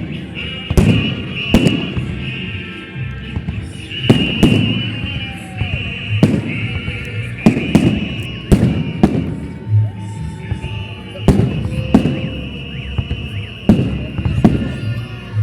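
Fireworks going off: a string of sharp bangs, roughly one a second and some in quick pairs, over a steady high hiss or whistle.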